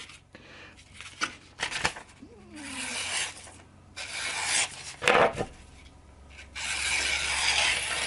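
Thin, freshly sharpened pocket-knife blades slicing through sheets of thin phone-directory paper. There are about three hissing slicing strokes, with a few light clicks between them.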